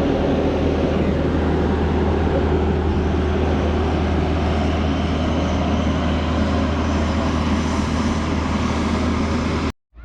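Steady vehicle noise, a constant low rumble with road or wind noise over it, that cuts off abruptly near the end.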